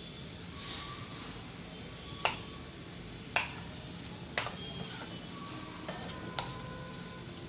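A spoon knocking against a kadai while stirring cooked carrot pieces and green chillies: five sharp metallic clicks, some with a brief ring, over a faint sizzle.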